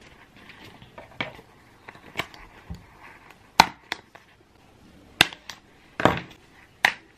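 A series of sharp clicks and knocks at uneven intervals, roughly one a second, from small objects being handled or set down.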